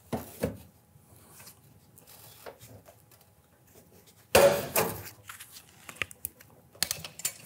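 Tin snips cutting a notch through the hemmed edge of a sheet-metal ridge cap: a short snip about half a second in, then one loud cut lasting about half a second around four and a half seconds in, followed by small clicks of the snips and metal.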